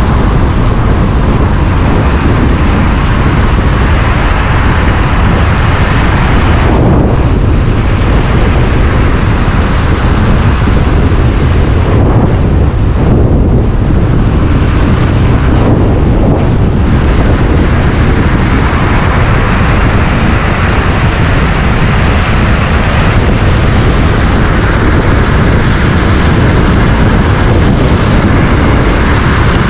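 Wind rushing and buffeting over the microphone of an electric scooter ridden fast downhill, mixed with tyre and road noise. Steady and loud, with the highs thinning briefly a few times.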